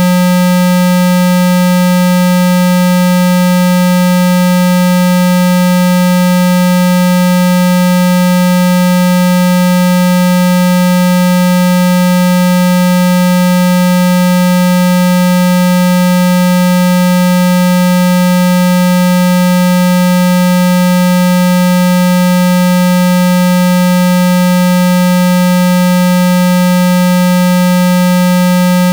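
Steady, loud synthesized 195 Hz water-eject tone, a low buzzing hum with fainter higher overtones that does not change. It is played through a phone speaker at full volume so the vibration pushes water out of the speaker.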